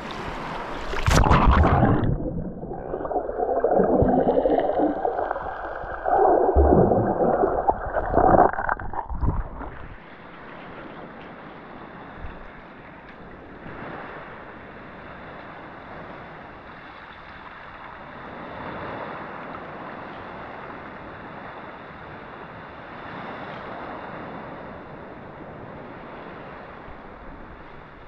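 Sea water sloshing loudly and muffled for about the first ten seconds, with no high sounds, as the camera goes under the surface. Then it cuts to a quieter, steady wash of small waves lapping at the water's surface.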